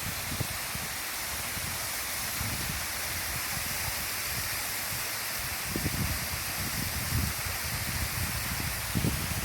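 A waterfall rushing with a steady hiss. Irregular low rumbles surge and fade over it, strongest about six and nine seconds in.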